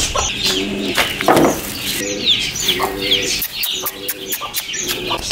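Young chicks peeping over feed, a dense run of quick, falling high notes, with short low calls from adult birds coming in bursts every second or so, and scattered sharp ticks.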